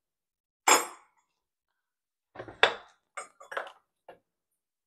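Metal engine parts and tools clinking and knocking on a workbench: one sharp clink under a second in, then a quick run of smaller knocks and clicks a couple of seconds later.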